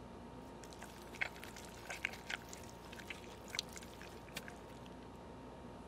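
Faint wet drips and squelches from a cartoon pizza splatter, a handful of soft, scattered clicks over a quiet background.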